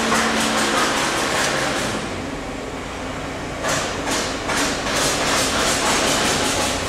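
Steady machine-room noise of PSA nitrogen generator units and their 55 kW Kaeser air compressors running at 8 bar. The high hiss fades for about a second and a half near the middle, then comes back.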